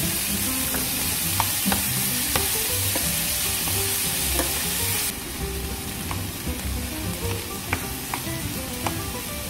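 Diced vegetables, bacon and shrimp sizzling in a hot frying pan while a wooden spatula stirs them, with scattered light clicks of the spatula against the pan. The sizzle drops in level about five seconds in.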